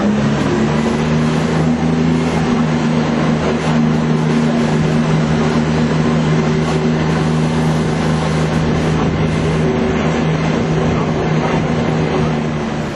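Bus engine running steadily under way, heard from on board, with a constant low hum and road noise; the hum eases slightly near the end.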